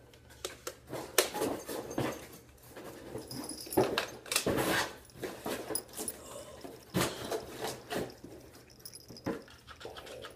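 A dog panting, with scattered clicks and knocks throughout.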